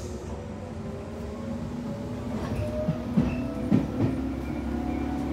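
Tobu 8000 series electric train heard from inside the passenger car as it pulls away from a station: the traction motors' whine rises in pitch as the train gathers speed, with a few sharp clacks of the wheels over rail joints about three to four seconds in.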